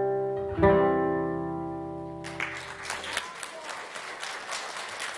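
Acoustic guitar plays the closing notes of a song, ending on a chord struck about half a second in and left to ring. About two seconds in, audience applause breaks out and continues.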